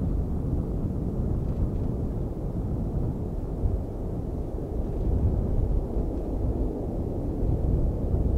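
Low, steady rumble of a Boeing C-17 Globemaster III's four Pratt & Whitney F117 turbofan engines as the aircraft banks away into the distance.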